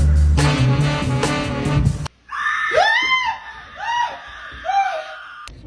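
Music with a heavy bass line cuts off abruptly about two seconds in. It is followed by a few short, high wailing cries, each rising and then falling in pitch.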